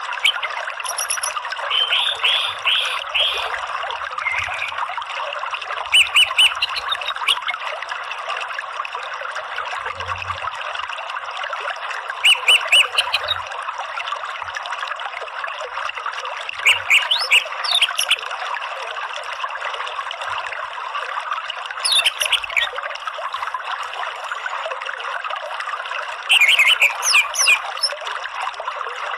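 Orange-headed thrush giving short runs of quick chattering notes (ngeriwik) every few seconds, some sweeping up and down, over the steady rush of a flowing stream.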